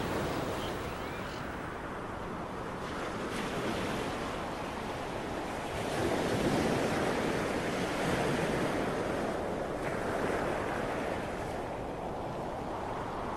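Ocean surf breaking and washing up a sandy beach, a steady rush that swells and eases every couple of seconds, with wind noise on the microphone.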